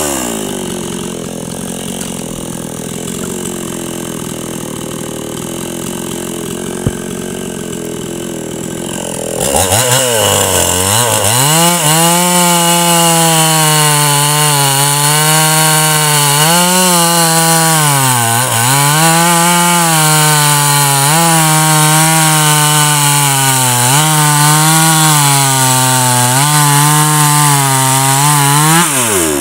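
Hyundai 45cc two-stroke chainsaw. It drops off high revs at the start and runs quieter for about nine seconds, then revs up sharply and cuts through a firewood round at full throttle, its pitch dipping again and again as the chain loads in the wood. The revs fall away near the end.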